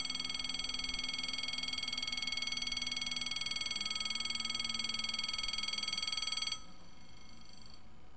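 Level-crossing bell ringing steadily, a shrill electronic warning, with a low hum beneath it while the barrier arm lowers. The ringing cuts off suddenly about six and a half seconds in, as the barrier comes down.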